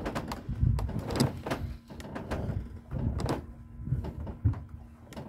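Irregular clicks and knocks with low thumps as a spinning reel is cranked and the rod worked against a hooked fish, over a faint steady hum.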